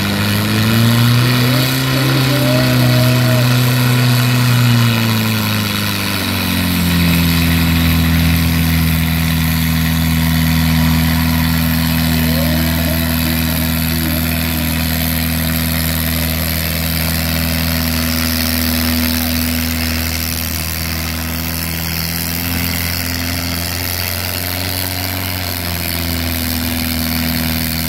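Mini garden-tractor puller's engine running hard while pulling a weight-transfer sled: the revs climb at the start, step down about six seconds in, then hold steady.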